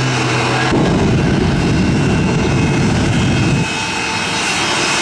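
Jet engines of the Shockwave jet truck running. About a second in, a loud rough rumble comes on suddenly, then eases off near the end.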